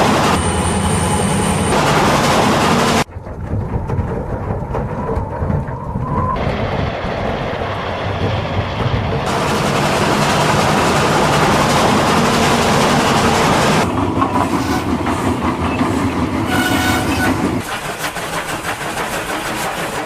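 Film sound effects of trains running fast on rails: a steady rumble and clatter of wheels that changes abruptly several times as the shots cut. A brief whistle sounds about three-quarters of the way through.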